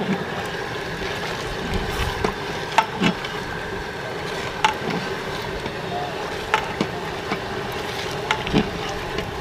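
Thick oily masala gravy bubbling in a large aluminium pot, with irregular sharp pops and ladle strokes as it is stirred, over a steady rushing background.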